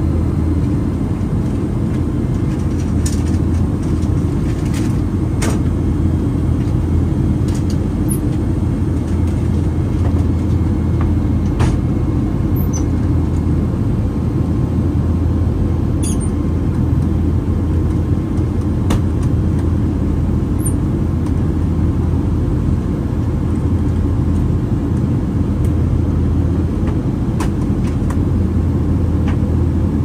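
Cabin noise of a Boeing 757-200 airliner in descent: a steady low rumble of engines and airflow, with a few faint clicks here and there.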